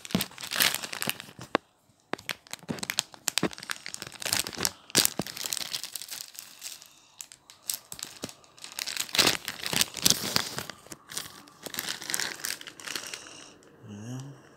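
Foil collectible-card packet being torn open and crinkled by hand: dense, irregular crackling and ripping, with a short pause about two seconds in.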